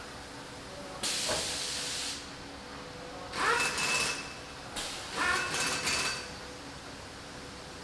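Assembly-line machinery on a gasoline engine production line: a steady hum, a hiss like released air about a second in, then two short whirring bursts that rise in pitch.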